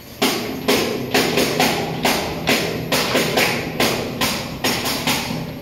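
Tambourine struck in a steady beat, about two strikes a second, its jingles shimmering after each hit.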